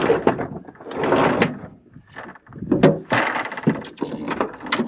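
Irregular scraping and rustling with a few sharp clicks and knocks from someone moving against the metal engine cowling and panels of a helicopter.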